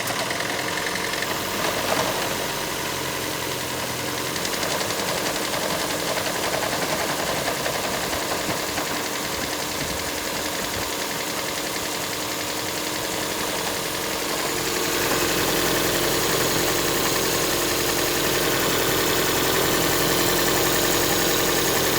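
2009 Toyota Prius's 1.5-litre four-cylinder petrol engine running on a test run after its fuel injector O-rings were replaced. About fifteen seconds in it settles into a steadier, slightly louder hum.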